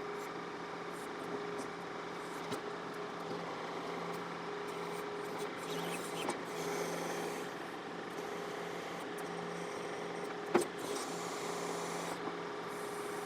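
John Deere 4052R compact tractor's diesel engine running steadily while it powers the 485A backhoe, with one sharp knock about ten and a half seconds in.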